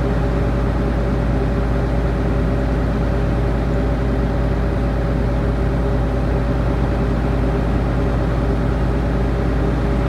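Komatsu D68ESS crawler bulldozer's diesel engine running steadily at one pitch as the dozer works the new road.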